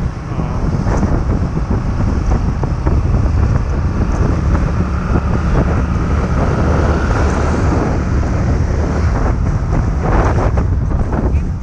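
Wind buffeting the microphone of a camera riding along on a motor scooter, with the low running noise of the scooter and road underneath.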